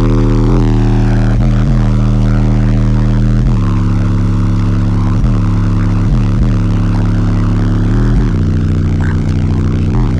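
Four 21-inch subwoofers powered by two DC Audio Pitbull 20K amplifiers, playing a bass demo track at very high level: long, held deep bass notes with a short downward slide in pitch every second or so.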